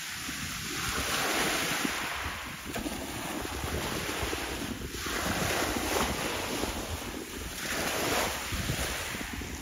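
Wind buffeting the microphone over choppy seawater, with waves washing in three swells of hiss a few seconds apart.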